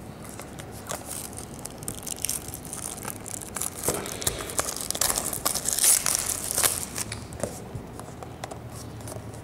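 Wrapping on a trading card box being torn open and crinkled, with quick crackles and clicks that are busiest about four to seven seconds in.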